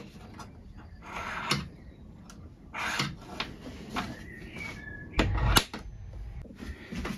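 Small metalworking hand-tool noises on a wooden bench: short scratches of jenny-leg calipers scribing a layout line along the edge of a small piece of brass, with a heavier knock a little past five seconds in.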